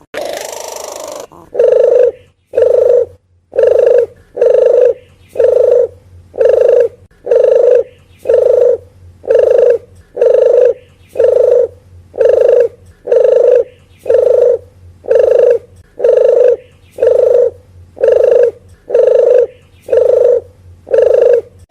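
Puter geni (deruk geni) dove cooing, used as a lure call: a long, even series of low coos at about one a second, starting about a second and a half in.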